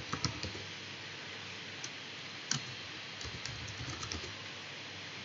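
Computer keyboard typing: scattered keystrokes, a few near the start, one about two and a half seconds in and a short run a second later, over a steady faint hiss.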